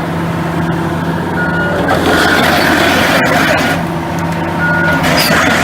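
Hitachi ZX450LC excavator's diesel engine running under load with heavy machinery noise, louder in the middle, and two short warning beeps from its alarm.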